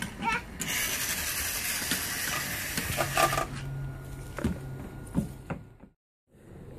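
Toy cars clattering and knocking on a wooden deck over a steady hiss. The sound cuts out completely for a moment near the end.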